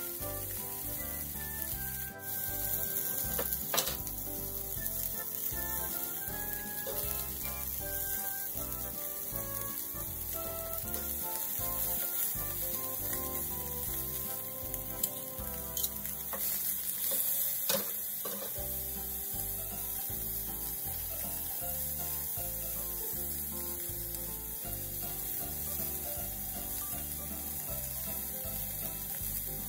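Beef steak sizzling steadily as it sears in a hot frying pan, with a few sharp clicks from metal tongs handling it. Soft background music with a steady beat runs underneath.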